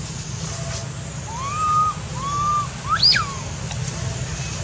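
Baby long-tailed macaque giving three whistle-like calls starting about a second in: two coos that rise and then hold level, then a short sharp one that shoots up high and drops back. These are the calls of an infant the narrator says has lost its mother. A steady low hum sits underneath.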